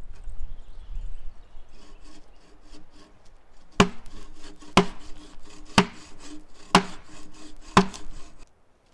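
Hand saw cutting through wood in steady back-and-forth strokes, with five sharp knocks about a second apart in the second half. The sound cuts off suddenly near the end.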